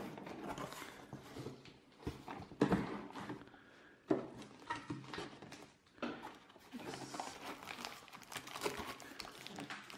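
Cardboard box and plastic-wrapped packaging being handled: irregular rustling and crinkling with a few sharp knocks, the loudest about two and a half seconds in and again about four seconds in.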